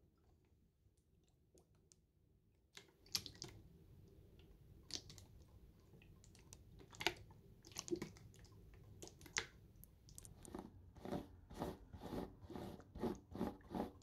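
Paper pieces being handled: short crinkles and light clicks after a near-silent start of about three seconds, coming thicker and more evenly near the end.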